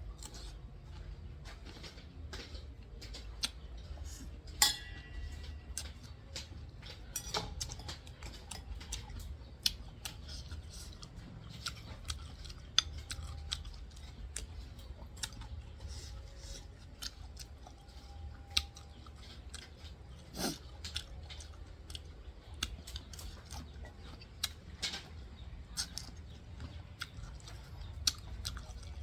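Cutlery clinking and scraping against a plate at irregular moments, with chewing, during a meal of stir-fried prahok with pork, over a low steady hum.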